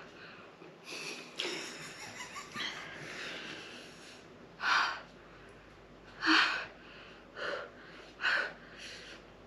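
A woman breathing hard through her mouth against the burn of a habanero pepper she has just swallowed: a long hissing breath about a second and a half in, then four short, sharp breaths in the second half.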